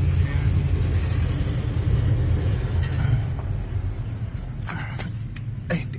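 Nissan Navara engine idling with a steady low rumble through its new full exhaust, which has no resonator. A few short knocks and rubs come near the end.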